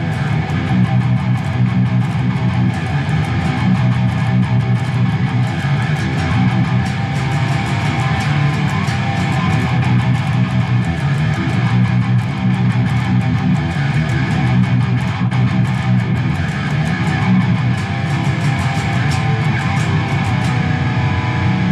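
Epiphone Les Paul Custom Origins 7-string electric guitar played through heavy distortion: dense, continuous riffing with fast picked notes.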